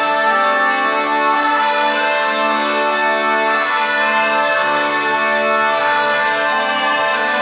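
Mandolin playing a slow melody in long held notes.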